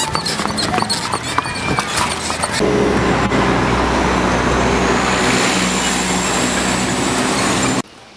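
Motor vehicle engine and tyre noise, loud and steady, coming in suddenly a little over two and a half seconds in with a faint rising whine, and cutting off abruptly just before the end. Before it, scattered clicks.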